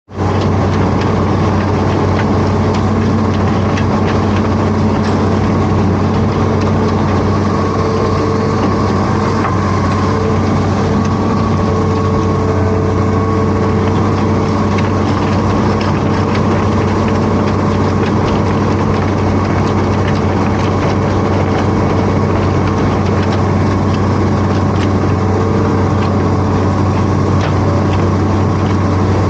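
Hitachi Zaxis 210F amphibious excavator's diesel engine running steadily, with a few faint clicks over it.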